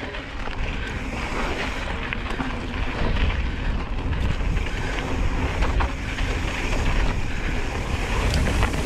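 Wind buffeting the microphone of a mountain bike riding a dirt trail at speed, a heavy low rumble, with tyre noise and scattered short clicks and rattles from the bike; it gets louder about three seconds in.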